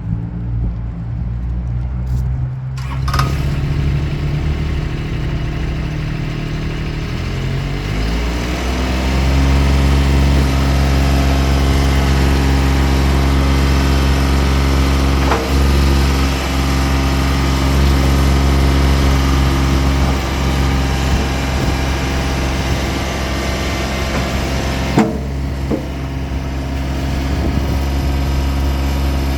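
Toro Dingo TX1000 mini skid steer's engine running at low speed, then rising in pitch about seven seconds in and holding steady at a higher speed. A couple of single knocks can be heard.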